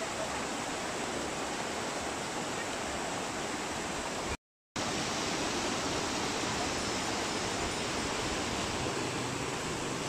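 Waterfall, a steady even rush of falling water, which cuts out completely for a moment a little under halfway through.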